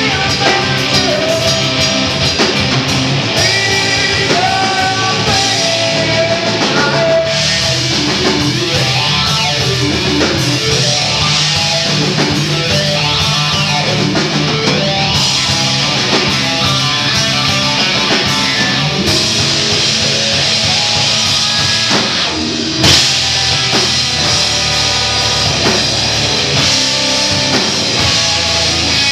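Rock band playing live at full volume: electric guitar, bass guitar and drum kit in a heavy, continuous passage, with a brief drop in level about three-quarters of the way through.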